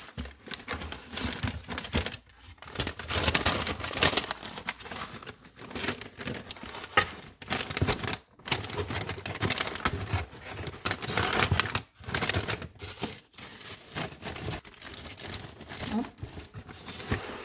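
Plastic snack bags crinkling and rustling as they are handled and packed into a cardboard box, in irregular bursts with a few brief pauses.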